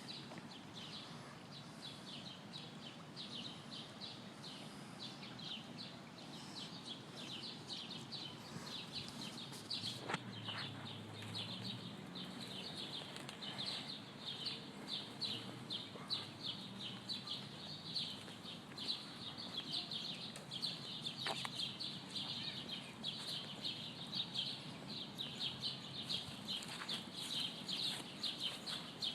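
Birds chirping: many rapid, high, short calls overlapping, getting denser after about ten seconds, over a faint low background rumble.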